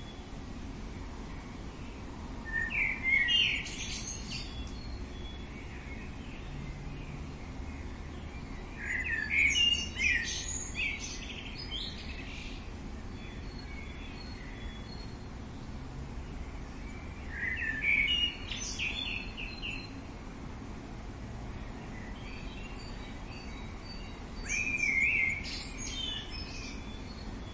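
A songbird singing four short phrases of quick, varied high notes, spaced about seven seconds apart, over a steady outdoor background noise.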